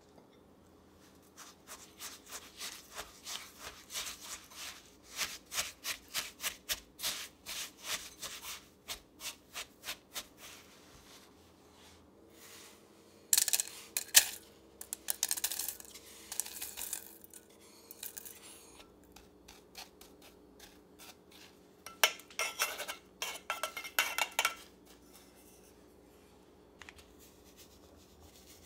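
A crumb crust mixture stirred with melted coconut oil in a plastic bowl: a run of rhythmic scraping strokes, about two a second. Then the crumbs are tipped into a round aluminium cake pan lined with parchment, with sharp knocks and rustling, and another run of scraping follows.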